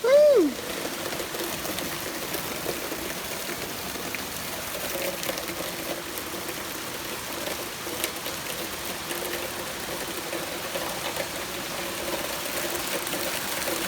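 Steady rain falling, an even hiss of rain on surfaces. Right at the start there is a brief pitched sound that rises and falls.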